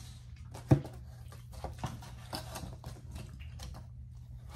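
Eating sounds: small clicks and taps of a plastic fork against a takeout container, with one sharp knock about three-quarters of a second in, over a steady low hum.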